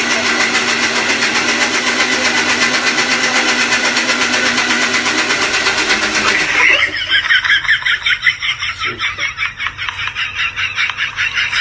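Electric mixer grinder running at full speed with a steady whirr; about six and a half seconds in the sound changes to a fast pulsing rattle.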